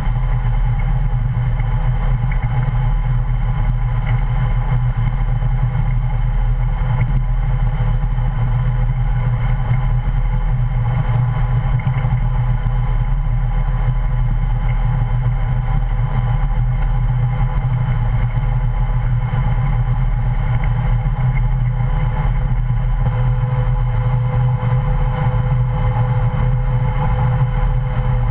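Heavy farm machinery running steadily at harvest, a constant low engine hum with steady whining tones above it, one of which grows a little stronger near the end.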